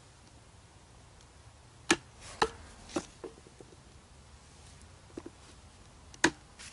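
Wooden mallet striking a chisel to chop a mortise across the grain in green bush timber: three sharp knocks about half a second apart, a few lighter taps, then another hard knock near the end.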